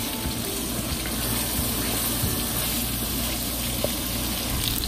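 Pointed gourd pieces frying in spiced curry paste in a pot, a steady sizzling hiss as a wooden spoon stirs them.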